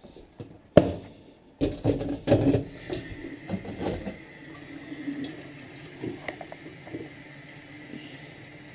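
Knocks and clatter of kitchenware being handled at a sink, loudest in the first few seconds, then a kitchen tap running steadily as a glass jug fills with water.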